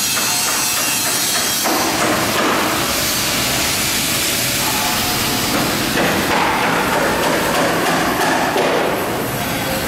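Cantilever single twist wire-stranding machine running: a loud, steady mechanical noise with faint knocking mixed in.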